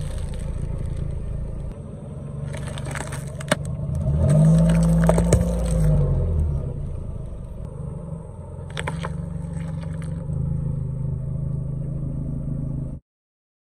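A car's engine runs low and steady as its tyre rolls over and crushes packaged objects, with bursts of crackling and crinkling, a sharp crack about three and a half seconds in and another crunch around nine seconds. The engine rises and falls in pitch around five seconds in, and all sound cuts off suddenly about a second before the end.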